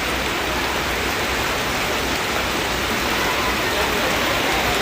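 Heavy rain pouring down in a steady, even hiss with no separate impacts.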